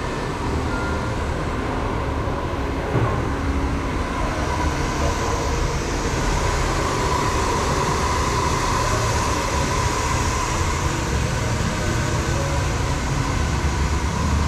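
Handheld hair dryer blowing steadily close to the head: a constant rush of air with a steady motor whine.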